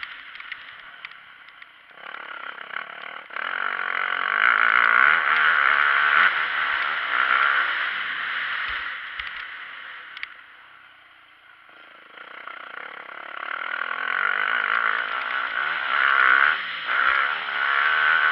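Motocross dirt bike engine revving hard under throttle as the bike rides the track. It eases off to its quietest around ten to eleven seconds in, then pulls hard again.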